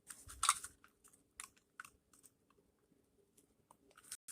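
Faint plastic clicks and taps from handling a small toll tag's battery compartment as it is opened: a quick cluster of clicks just after the start, then a few scattered single ticks.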